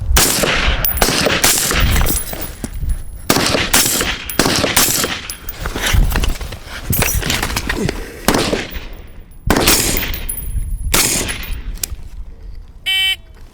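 Suppressed 5.56 AR-15 rifles firing a timed string of shots in several quick clusters separated by short pauses, as the shooters change between standing, kneeling and prone. A short electronic beep, typical of a shot timer, sounds near the end.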